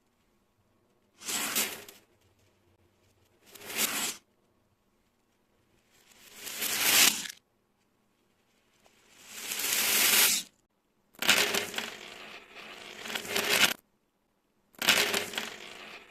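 Crunching, grainy noise of beads and stones, in six separate bursts with dead silence between them. Two of the bursts swell and then cut off abruptly, and the last two run on longer with a steady crackle.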